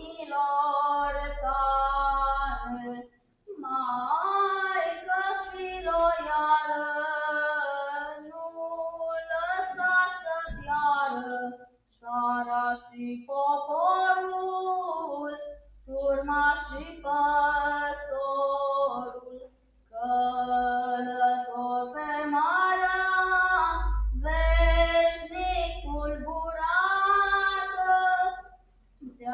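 A young female voice singing a Romanian folk song unaccompanied, in phrases of a few seconds with short breaks between them.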